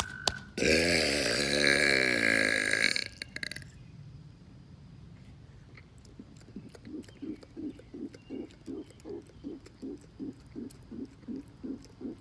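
A man lets out one long, loud burp of about two and a half seconds, its pitch wobbling, beginning about half a second in. Later a faint rhythmic pulsing, about three beats a second, sounds in the background.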